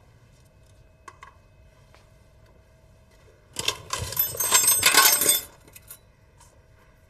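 A metal teaspoon clinking and rattling for about two seconds midway through, as a drink is made in a paper cup. It starts suddenly and stops just as suddenly, with a couple of faint clicks before it.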